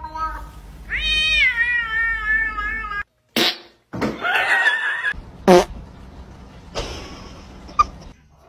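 A cat meowing: one long, drawn-out meow that jumps up in pitch about a second in and slowly falls over the next two seconds, ending abruptly. After it come shorter, rougher cries and a few brief sharp sounds.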